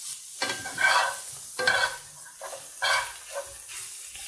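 Grated carrot and chopped onion sizzling in hot oil in a frying pan, being sautéed, while a spoon stirs them with a few louder scrapes against the pan.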